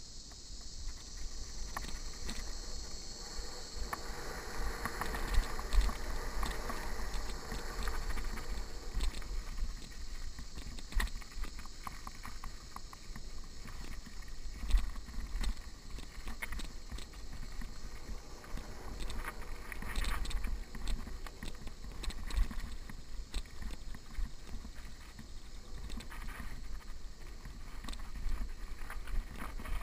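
Mountain bike riding down a rough dirt trail: tyres rolling over dirt and stones, with frequent knocks and rattles from the bike over bumps, and wind rumbling on the microphone. A high insect buzz is heard in the first few seconds and fades out.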